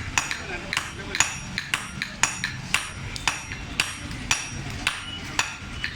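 Blacksmith's hammer striking hot iron on an anvil while forging a sickle blade: steady blows about two a second, each with a short metallic ring.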